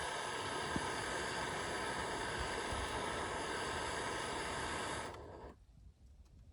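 A steady hissing noise that cuts off abruptly about five seconds in, leaving a much quieter background.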